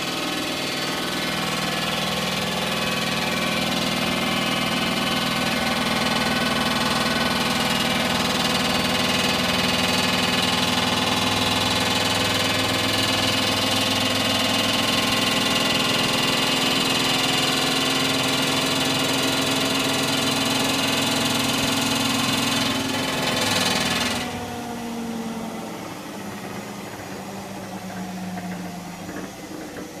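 Hotpoint washing machine spinning at high speed: a steady motor whine with drum rumble. About 24 seconds in it winds down suddenly, the pitch falling as the drum slows.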